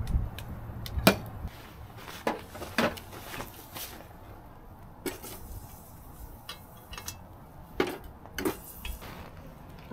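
Scattered light clinks and knocks of a cast-iron Dutch oven and its wire bail handle being handled over a wood-fire stove. About a dozen sharp taps come at irregular gaps, the strongest about a second in and near the end.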